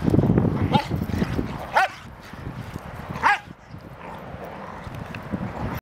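Dogs wrestling in play, with three short, high yips about one, two and three seconds in, each dropping in pitch.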